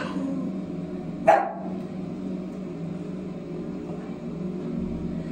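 A woman crying with emotion, sobbing and whimpering behind a hand held over her mouth, with one short, sharp sob about a second in.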